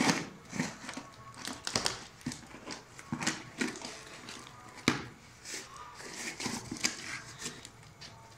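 Scissors cutting and scraping through packing tape on a cardboard parcel, with irregular scratches, rustles and knocks as the box is handled, and one sharper knock about five seconds in.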